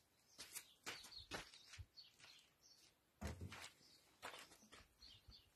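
Faint, irregular clicks and knocks, with a heavier low thump a little past three seconds in.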